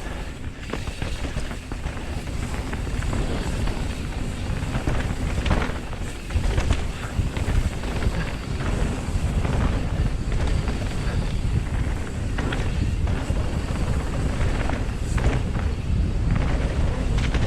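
Wind buffeting an action camera's microphone during a fast mountain-bike descent, a loud steady rumble, with the scattered knocks and rattles of the bike going over rough trail.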